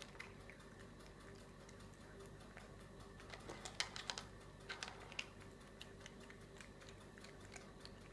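Cat eating from a bowl: quiet, irregular crunching clicks, with a burst of louder ones in the middle, over a faint steady hum.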